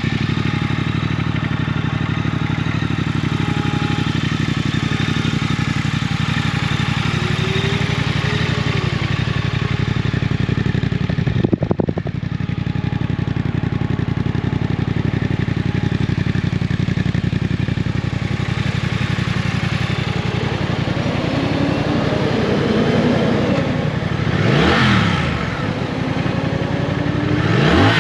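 Triumph Thruxton RS 1200 cc parallel-twin engine idling steadily. There is a brief jolt about halfway through. Near the end the throttle is blipped twice, each rev rising and falling back to idle.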